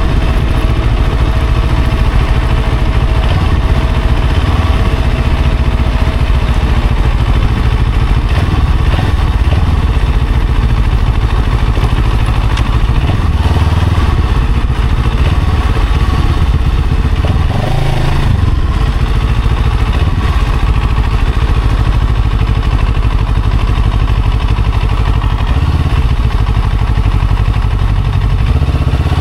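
Vehicle running in road traffic: steady, loud engine, road and wind noise, with a short rise in pitch about eighteen seconds in.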